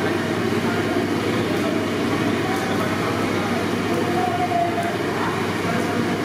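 Breaded chicken deep-frying in a large kadai of hot oil: steady sizzling and bubbling over a constant low rumble.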